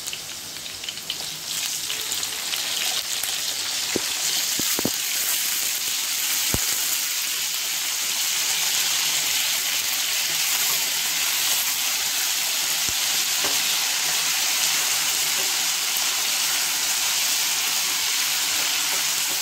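Potato and brinjal pieces frying in hot oil in a non-stick pan: a steady sizzle that grows louder over the first couple of seconds as the cut brinjal goes in, with a few light clicks. Near the end the vegetables are stirred with a wooden spatula.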